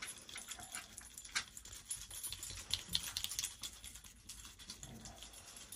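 Small metal bolts being handled and fitted by hand into a wooden crib frame: light, irregular clicks and metallic rattles.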